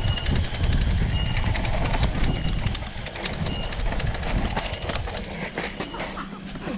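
Mountain bike rolling along a dirt trail: a heavy low rumble from the tyres, with the bike rattling and clicking over bumps. The rumble eases off near the end.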